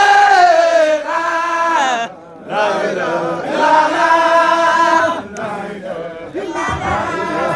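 A group of Baye Fall voices chanting a Sufi zikr in unison. They hold long notes with short breaks between phrases, one about two seconds in.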